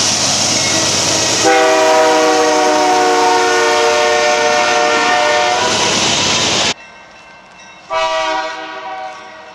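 Nathan K3-series five-chime locomotive air horn sounding one long chord of several steady notes over the loud noise of a passing train. The sound cuts off suddenly, and near the end a second horn gives a shorter blast that fades away.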